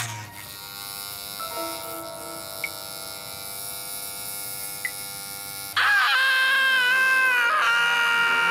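Electric hair clippers buzzing steadily, with two faint clicks. About six seconds in, louder cartoon music cuts in suddenly and takes over.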